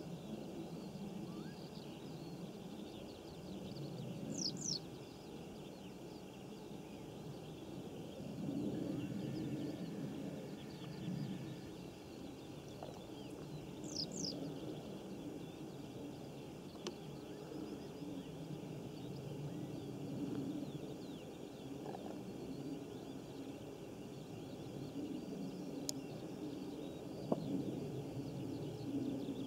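Open-field ambience: a low, uneven background rumble with scattered small bird calls, including a pair of quick high whistles about four seconds in and again about fourteen seconds in. A faint click and a soft knock come near the end.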